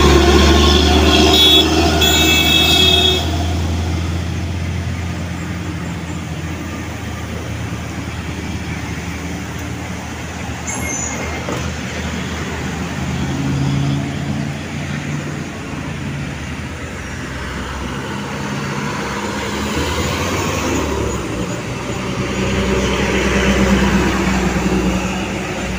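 Heavy diesel trucks and cars passing close on a steep road, their engines running with a deep rumble that swells as each vehicle goes by. A horn sounds for the first few seconds.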